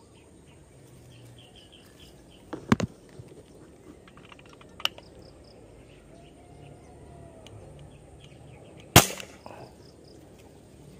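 Sharp cracks from an air-gun fishing rig, one a little under three seconds in and a louder one near the end with a short ring after it. Birds chirp faintly early on.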